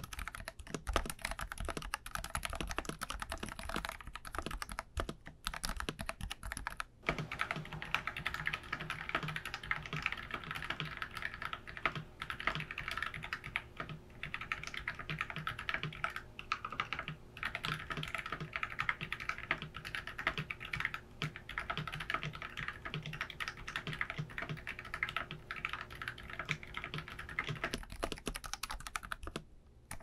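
Steady, fast typing on a 65% mechanical keyboard with stock Akko Haze Pink silent linear switches, whose rubber stem dampeners keep the keystrokes low-noise. About seven seconds in the typing sounds brighter and thinner, with a faint steady hum under it, as the recording moves from a stereo recorder to the camera's built-in microphone; near the end it shifts back.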